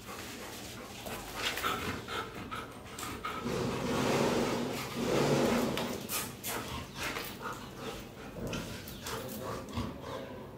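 Black Labrador whining, loudest about four to six seconds in, with scattered small clicks and knocks around it.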